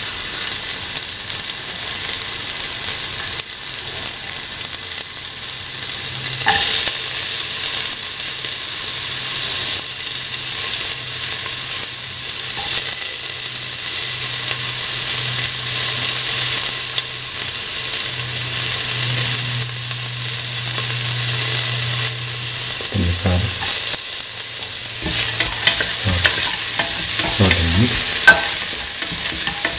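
Sliced onions frying in hot oil in a stainless steel pan, a steady sizzling hiss. In the last few seconds they are stirred, with scrapes and knocks against the pan.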